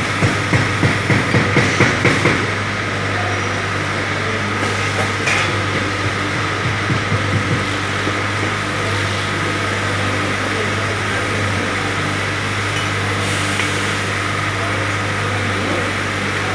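Steady hum of factory machinery with a constant high tone. A rhythmic mechanical knocking of about four strokes a second runs for the first two seconds and comes back briefly a few seconds later.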